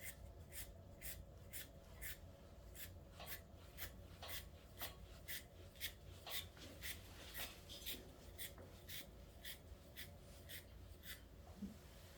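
A coarse stripping knife hand-stripping a dog's hard, blown coat: short raspy pulls at about two a second as the loose dead hair comes out.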